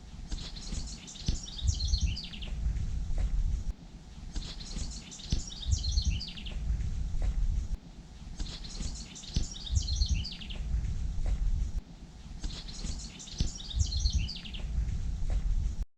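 Bird song over a low rumble, looped. The same phrase, a quick run of high notes falling in pitch, comes back every four seconds, four times in all.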